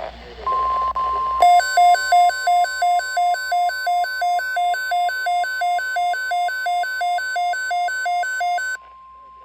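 NOAA Weather Radio's steady 1050 Hz warning alert tone, the signal that a weather alert follows. From about a second and a half in, a loud electronic alarm beeps over it, switching quickly between a low and a high pitch about three times a second. The alarm stops shortly before the end, and the alert tone runs on alone.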